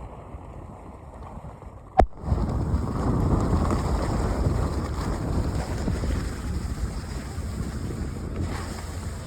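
Wind buffeting the microphone: a low rushing rumble. A sharp click about two seconds in, after which the rushing gets much louder.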